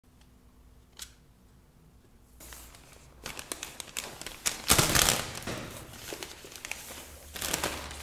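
Scissors cutting open a plastic mailer bag, with the plastic crinkling and rustling as it is handled. A single click comes about a second in; the cutting and crinkling start about two and a half seconds in and are loudest around the middle.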